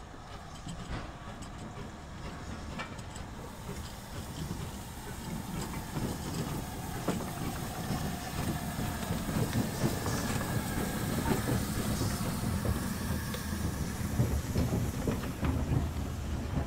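LMS Stanier 8F 2-8-0 steam locomotive passing at low speed: a low rumble with clanks and knocks from its wheels and running gear, growing steadily louder as it draws level.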